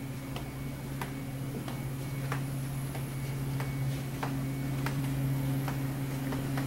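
Footsteps walking at an even pace along a carpeted corridor, about one and a half steps a second, each a short click, over a steady low hum.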